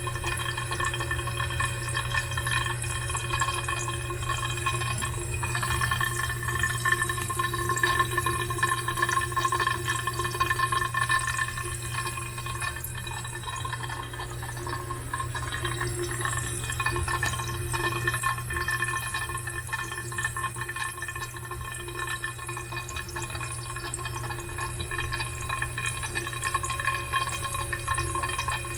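Household water pipe with water rushing through it and a steady hum of several held tones. The hum comes up when the valve is shut off tight; its cause is unknown to the owner.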